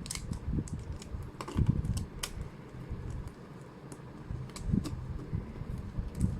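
A plastic 3x3 speedcube, assembled from big edge pieces and small corner pieces of two different cubes, being turned by hand: irregular plastic clicks and clacks over low handling thuds. The turns are stiff, with layers catching on the mismatched pieces.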